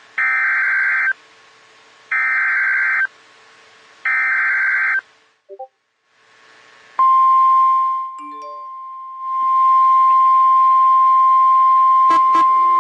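NOAA Weather Radio Emergency Alert System tones. Three one-second screechy bursts of SAME digital header data come about two seconds apart, each encoding the alert. After a short gap the steady 1050 Hz warning alarm tone starts about seven seconds in, which signals that a warning follows; it dips in level briefly about a second later, and a few clicks sound near the end.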